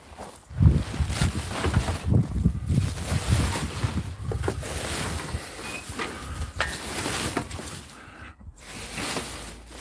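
Wind buffeting the microphone in irregular low rumbling gusts, strongest in the first few seconds, with scattered light knocks and handling noise.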